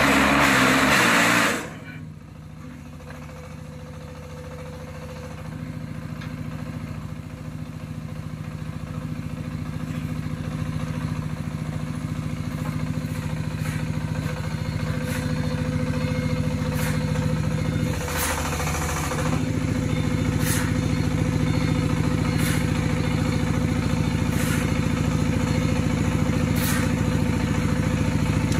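Diesel engine of a block-making machine running steadily, slowly growing louder. A louder, noisy rattle cuts off suddenly about a second and a half in, and in the second half a shovel scrapes on the concrete floor about every two seconds.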